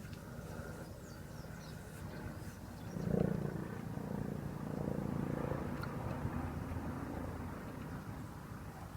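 Small motorcycle engine running with a steady low hum, picking up and getting louder about three seconds in, then easing back.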